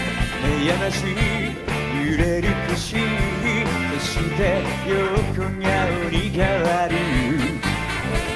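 Live band playing a rock song, a man singing lead over electric bass and a steady drum beat.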